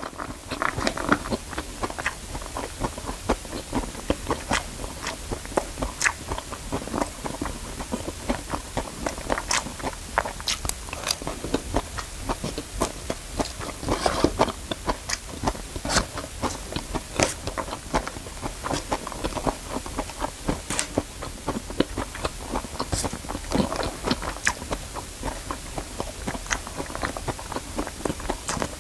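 Close-miked eating: a person chewing fried rice, with a metal spoon scraping and tapping at the food on a paper wrapper, making many short clicks and crunches.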